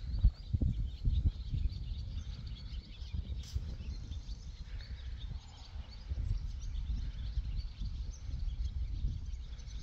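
Wind rumbling on the microphone, gusting hardest in the first second or so, with birds chirping faintly in the background.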